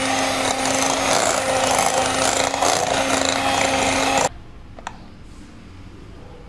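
Electric hand mixer running steadily with its beaters whipping a thick cream cheese and cream mixture, then switched off abruptly about four seconds in. A light click follows.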